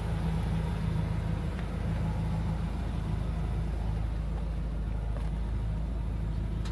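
Ford Lightning SVT's supercharged 5.4 L V8 idling steadily: an even, low rumble.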